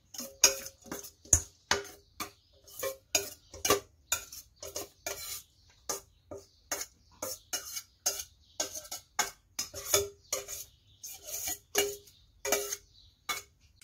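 A metal spoon knocking and scraping against a stainless steel mixing bowl as food is scraped out: an uneven run of sharp metallic clinks, about three a second, each with a short ring.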